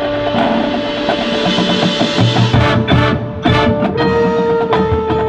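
Marching band and front ensemble playing music: held chords at first, joined about two seconds in by rhythmic drum hits.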